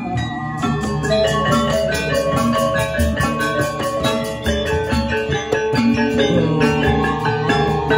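Balinese gamelan gong ensemble playing: bronze metallophones struck in fast, even strokes over low sustained gong and drum tones.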